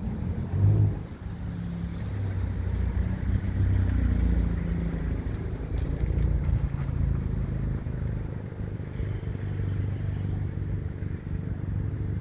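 A motor vehicle's engine running steadily, a low rumble.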